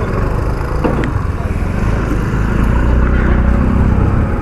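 Honda CD 110 motorcycle's small single-cylinder four-stroke engine running at low speed, a steady low rumble, with street traffic noise around it.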